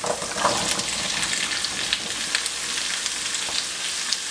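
Chopped rhubarb stalks tipped into a hot pan of oil and frying spices, setting off a sudden louder sizzle with many small crackles that keeps going.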